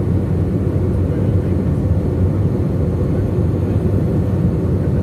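Steady low drone of a jet airliner's engines and airflow, heard inside the cabin at a window seat over the wing during the descent.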